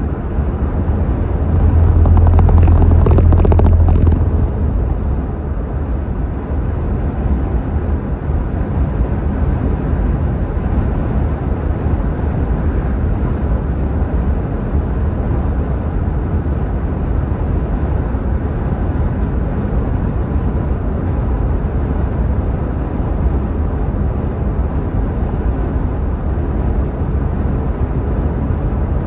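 Steady road and engine noise heard inside a moving car's cabin, with a louder low rumble for about two seconds near the start.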